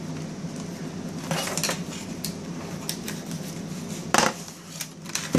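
Hands handling small retail packages and a cardboard shipping box: scattered clicks, taps and knocks, the loudest a sharp knock about four seconds in.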